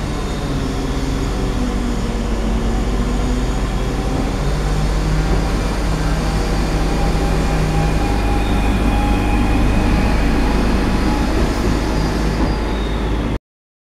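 Class 139 Parry People Mover railcar running along the platform: a steady low rumble from its small gas engine and flywheel drive, with several held humming and whining tones. The sound cuts off abruptly near the end.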